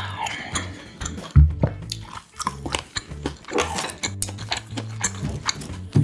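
Close-up chewing of fried sprouts with many short mouth clicks, over background music with a steady low beat.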